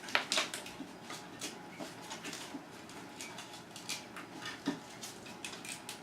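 Irregular light clicks and taps of small circuit boards and pin headers being handled and set down on a bench, with a slightly louder knock near the start and another about two-thirds through.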